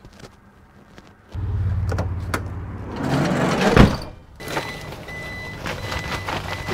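Ram ProMaster van's engine starting about a second in and then running steadily, with a louder surge around the middle. There are a few clicks before it starts, and a faint high tone comes and goes later.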